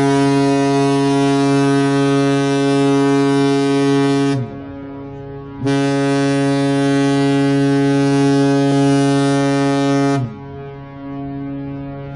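Cruise ship's air horn sounding two long blasts of about four and a half seconds each, a deep, steady chord with a pause of over a second between them. The pitch sags briefly as each blast cuts off.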